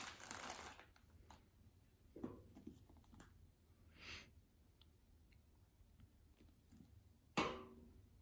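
Crinkling of a plastic bag of craft pom-poms that stops about a second in, then quiet hand sounds of gluing, with a short hiss about four seconds in and a sharp knock near the end.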